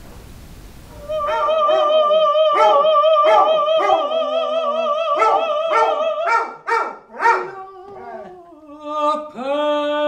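A woman sings a long held note with a wide vibrato while a black-and-white dog on her lap barks and yelps along repeatedly. Near the end she starts a new, lower held note.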